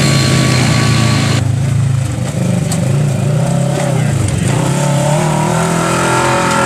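Side-by-side UTV engine revving up and easing off again and again as it is driven over rocks and dirt, its pitch rising and dipping every second or two. An abrupt cut about a second and a half in switches to a different run of the engine.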